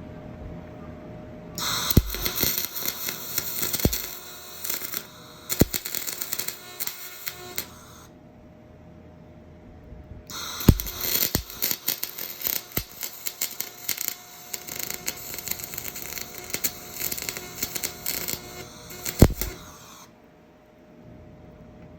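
Electric arc welding crackling in two long runs with a short break between them, with a few sharp metallic knocks.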